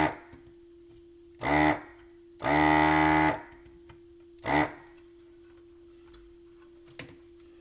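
Electric desoldering tool's vacuum pump switched on in short bursts, four times, a steady motor buzz with a hiss of suction, while it draws solder off a transistor's leads. A faint steady hum lies underneath.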